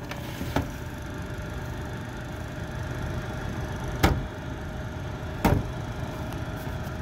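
Holmes cylinder window fan running on high: a loud, steady rush of air with a steady hum. There are three short knocks, the loudest about four seconds in, as a hand handles the fan's housing.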